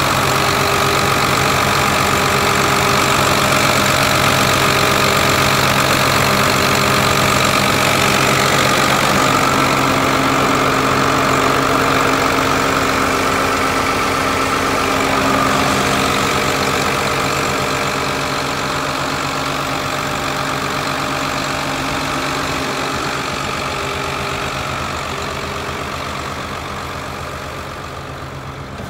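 2000 New Holland 8970 tractor's six-cylinder diesel engine idling steadily, growing fainter over the last ten seconds or so.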